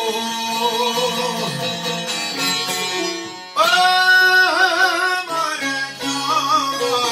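Albanian folk song: plucked long-necked lutes and violin playing, with a man's voice coming in about halfway through on a loud, wavering sung line.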